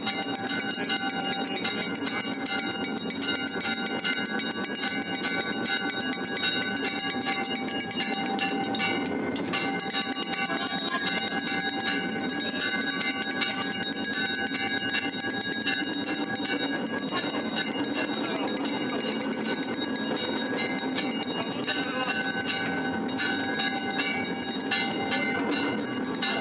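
Dense, steady ringing of many temple bells together during an aarti, a continuous clanging din.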